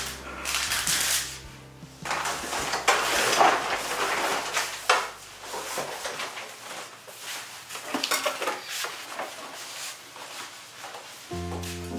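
Household things being handled: a run of irregular rustling and clattering knocks. Soft background music fades out about two seconds in and comes back near the end.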